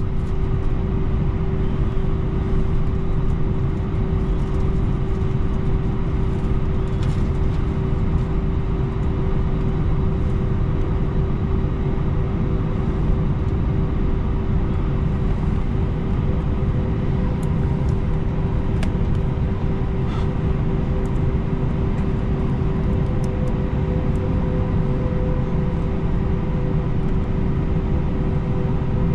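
Steady Airbus A321 cabin noise: a constant rumble with a steady whine running through it. A second, slightly higher tone grows in over the last few seconds, with a few faint ticks.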